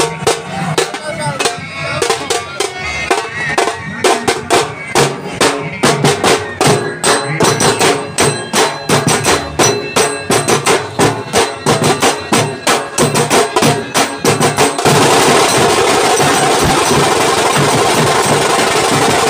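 Procession band drums beaten with sticks in a fast, steady rhythm of about four strokes a second, several drums together. About fifteen seconds in, the drumming breaks off sharply into a steady, loud rushing noise.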